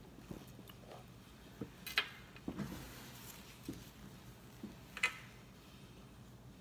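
Light, scattered clicks and taps of a toddler's small metal spoon against her plate and the table as she eats, with two sharper clicks about two seconds and five seconds in.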